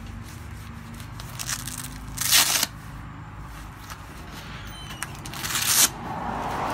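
Hook-and-loop (Velcro) straps of a waist trainer being ripped open and pressed shut: two loud rips, a little over two seconds in and again about five and a half seconds in, with softer crackling before each.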